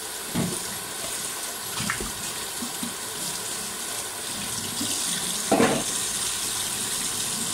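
Kitchen tap running into a stainless steel sink while something is washed by hand under it, with a few light knocks and a brief louder clatter about two-thirds of the way through.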